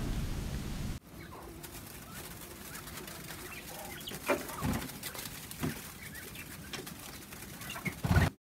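Quail calling with a few short, scattered chirps over a low background as the birds scuffle in wood shavings. The sound cuts off abruptly just before the end.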